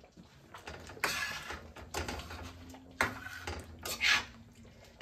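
A metal spoon stirring a boiling cream sauce in a stainless steel pan, scraping and swishing through it in strokes about a second apart.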